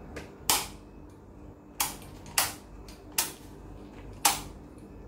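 Five sharp clicks, a second or so apart, the loudest about half a second in and near the end, as hands handle and tidy the motorcycle's headlight wiring and its connectors.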